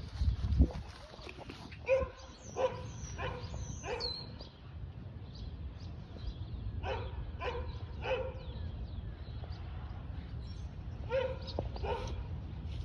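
American bully puppy giving short, high barks in three spells of three or four.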